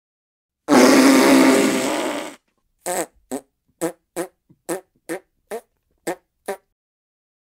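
Fart sound effects played from a soundboard app: one long, loud fart lasting under two seconds, then a quick string of about nine short ones at roughly two a second.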